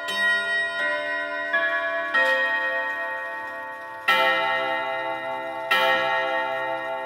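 Loud chiming of a FIAG double-ring pendulum wall clock. The last notes of its chime tune ring out on the gong rods, then the hour strikes begin, two heavy strokes about a second and a half apart. The clock is counting three while its hands show two, so the strike runs one hour ahead of the hands.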